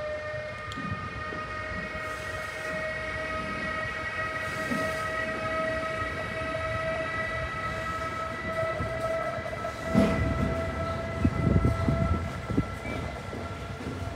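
Freight train of loaded double-deck car-carrier wagons, hauled by a Siemens Vectron electric locomotive, rolling past with a steady high whine over a rumble of wheels on rail. From about ten seconds in there is a run of heavier knocks and rumbling.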